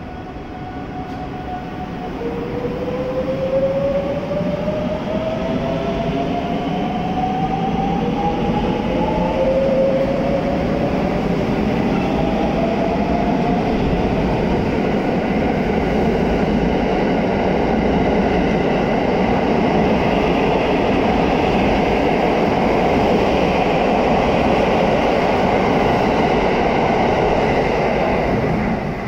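JR West 683-series and 681-series limited-express electric train pulling out and accelerating past: the inverter-driven traction motors' whine rises steadily in pitch over the first several seconds, while the rumble of wheels on rail grows and then holds as the cars go by, falling away right at the end as the last car clears.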